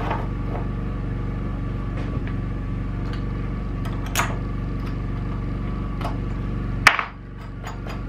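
A few light knocks and clicks as a bolt is worked by hand through a drilled hole in a wooden leg and board frame, over a steady low hum. About seven seconds in, a sharp click comes and the hum cuts off.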